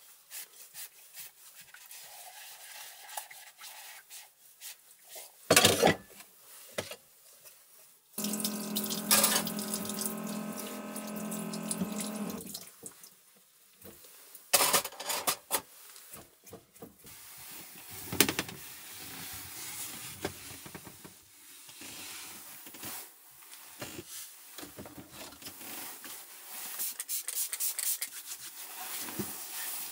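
Water running and dripping into a sink or container, with a few sharp knocks, and a steady hum lasting about four seconds in the middle.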